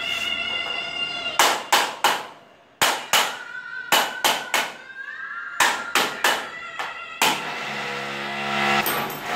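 Hammer blows on a metal tool held against a metal frame: sharp strikes, mostly in quick groups of two or three, each with a short ring.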